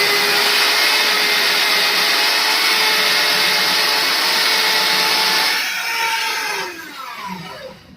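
Cylinder boring machine running with a steady whine while boring out a Honda 110 scooter engine's cylinder. About five and a half seconds in it is switched off, and its pitch falls as it spins down to a stop.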